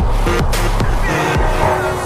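Background music: an instrumental stretch of a pop song with a steady beat.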